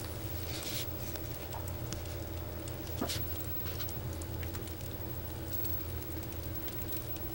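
Faint rustling and light crackling as the boas shift against their dry shed skin, scattered small ticks over a steady low hum. There is a brief hiss about half a second in and a single sharper click about three seconds in.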